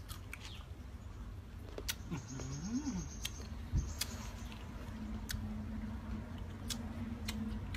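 A man chewing crisp unripe green mango, with scattered crunching clicks, while humming a low, closed-mouth 'mmm' of enjoyment: a short hum that rises and falls about two seconds in, then a longer steady hum.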